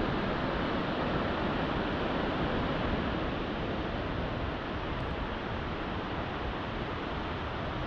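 Steady, even rush of a mountain waterfall's falling water.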